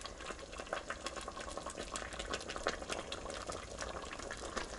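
Apple jam (apple slices in sugar syrup) bubbling at a boil in a steel pot on a gas stove: a steady crackle of many small pops. This is the third boil, with the slices gone translucent and the syrup thin and watery.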